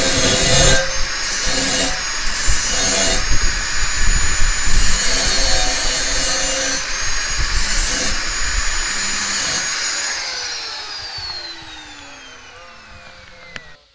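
Handheld angle grinder grinding the tooth seats on the steel rim of a circular saw blade, in short passes with the motor whining between them. About ten seconds in it is switched off and the whine falls in pitch as the disc spins down.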